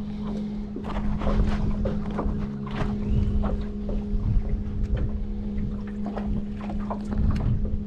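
Steady hum from a small electric motor on an aluminium fishing boat, under wind rumbling on the microphone, with scattered clicks and knocks of fishing tackle being handled and a cast.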